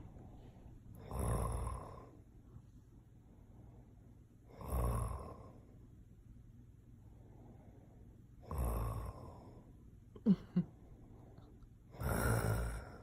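A man snoring in his sleep, four long snores about every three and a half seconds. Between the last two come two brief sharp sounds in quick succession.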